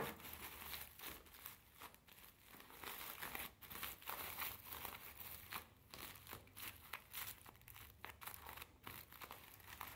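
Aluminium foil crinkling faintly and irregularly as hands press and smooth the foil wrapped around a cone form.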